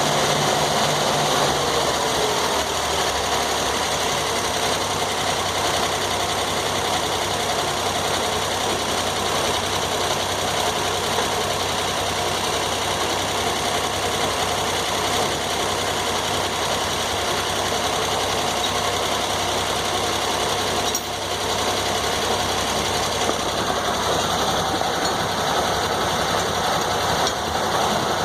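Engine-driven circular sawmill running steadily, with a short dip in level about three quarters of the way through.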